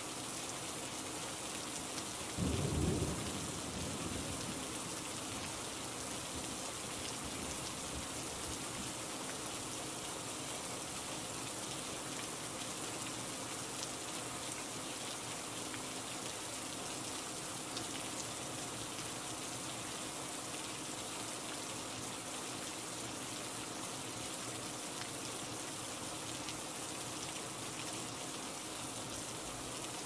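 Steady rain falling, with one short low rumble of thunder about two and a half seconds in that dies away within a second or two.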